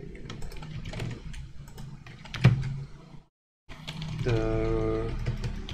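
Computer keyboard and mouse in use: a run of irregular light key clicks, with one louder click about two and a half seconds in.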